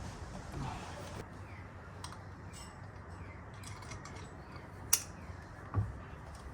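A few light clicks and taps of hand tools working on the steering-wheel fittings. The sharpest click comes about five seconds in, with another just under a second later.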